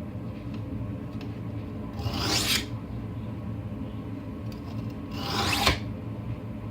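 Steel deboning knife blade drawn across a wet whetstone: two slow grinding strokes about three seconds apart, each swelling to its loudest at the end before stopping, over a low steady hum.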